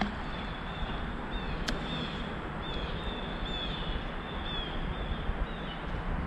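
A small bird calling with a run of short, high chirps that drop slightly in pitch, over a steady outdoor background hiss. A single sharp click comes about a second and a half in.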